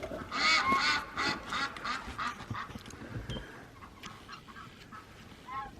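A flock of ducks quacking. There is a quick run of loud quacks in the first second, then fainter scattered quacks, with one more quack near the end.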